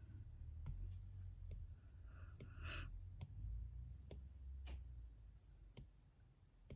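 Faint, sparse taps of a stylus on a tablet screen, about one a second, with a brief soft hiss a little over two seconds in.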